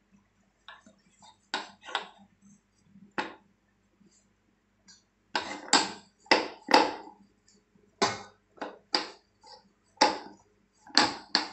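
Wooden rolling pin rolling out stiff dough on a round rolling board, knocking and clattering against the board in irregular clusters. The knocks are faint and sparse at first and grow louder about halfway through.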